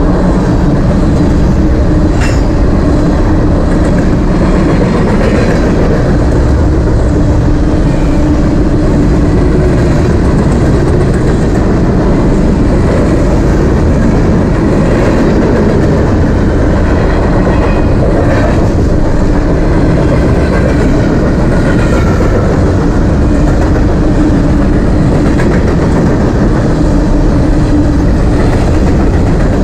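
BNSF covered hopper cars of a freight train rolling past at close range: a loud, steady rumble of steel wheels on rail.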